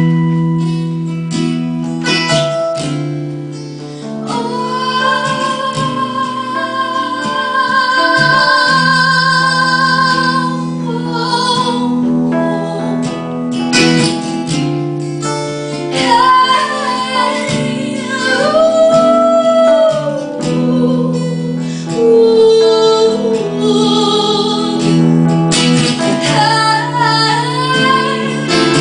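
Music: strummed acoustic guitar with a woman's voice singing long, wavering held notes.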